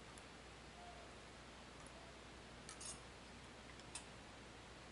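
Near silence with a few faint, sharp metal clicks from hand tools on the rocker arms of a 5.9 Cummins 12-valve cylinder head while the valve lash is being adjusted.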